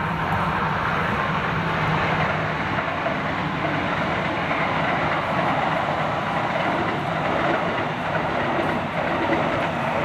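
Kintetsu electric train passing along the line: a steady rumble of wheels on the rails with some clickety-clack.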